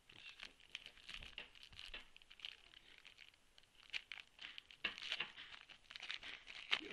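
Foil trading-card pack wrapper crinkling as it is handled and torn open, a run of quick crackles with a sharper crack near the end.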